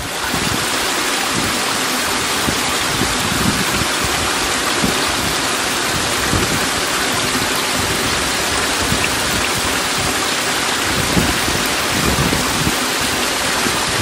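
Fast-flowing water of a waterfall and rocky stream rushing steadily, an even, unbroken hiss.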